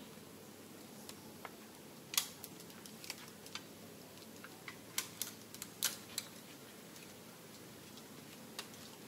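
Scattered, irregular sharp clicks and ticks, most of them bunched between about two and six seconds in, over a steady faint outdoor hiss.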